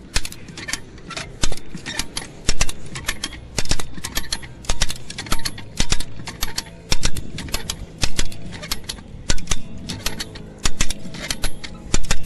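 Hand lever winch (come-along) being pumped, its ratchet clicking in bursts about once a second as the steel cable is drawn tight on a magnet that is stuck fast.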